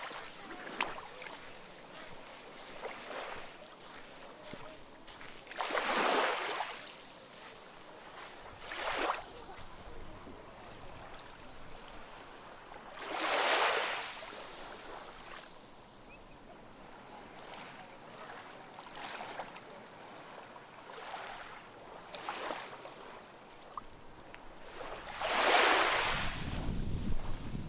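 Small sea waves washing onto the shore, a hissing swell every few seconds with the loudest about six, thirteen and twenty-five seconds in. A low rumble near the end.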